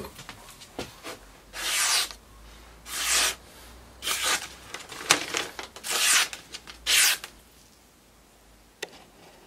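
Rubbing strokes of a hand wiping the freshly polished steel axe head, about one a second, six in all, each about half a second long, with a faint click near the end.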